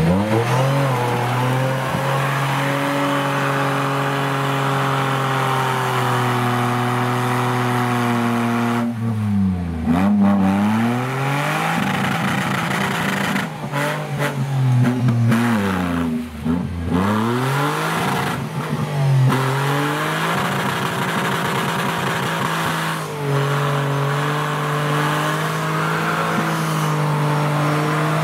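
Off-road 4x4's engine running under load, holding steady revs, then dropping and climbing sharply in revs several times near the middle as the throttle is lifted and reapplied.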